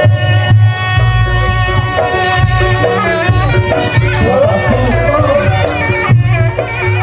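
Reog Ponorogo accompaniment music played live: a reedy slompret shawm carries a wavering melody over kendang drums and gongs.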